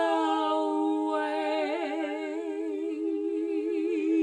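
Two women's voices singing a cappella, holding a long note in close harmony that wavers with vibrato.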